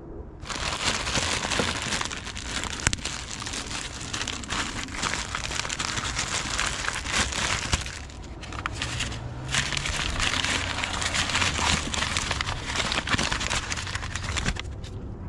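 A plastic parts bag and then a paper bag crinkling and rustling as they are opened by hand to unwrap a new smooth idler pulley, with a short lull partway through.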